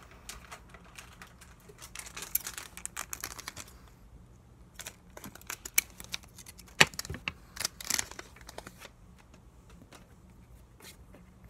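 Pokémon trading cards being flipped through and slid against one another by hand, giving quick dry clicks and snaps in several bursts.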